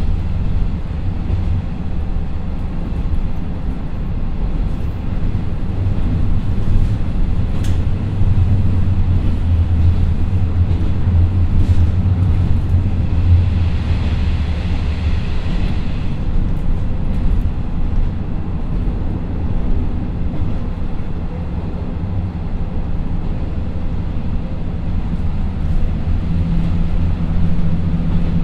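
Cabin running sound of a KiHa 54 diesel railcar at about 55 km/h: the steady low drone of its twin Niigata DMF13HS diesel engines and the rumble of the wheels on the rail. A few sharp clicks, a short stretch of higher hiss about halfway through, and a steadier low hum near the end.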